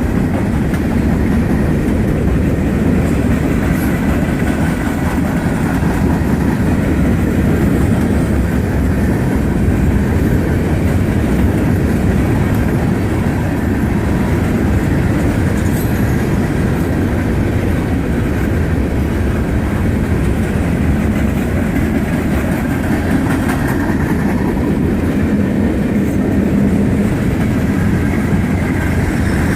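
Freight train rolling past at close range: a steady, loud rumble of wheels on rail with some clickety-clack and a faint high squeal at times.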